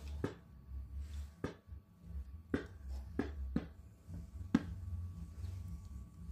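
Half a dozen sharp metallic clicks and taps, irregularly spaced, as hands handle a brass carbide lamp and turn its water-drip valve to shut off the water and starve the acetylene flame, over a steady low hum.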